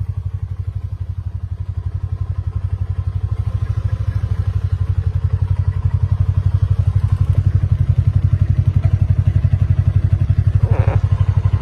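Engine running steadily with a fast, even low chug, getting a little louder about halfway through.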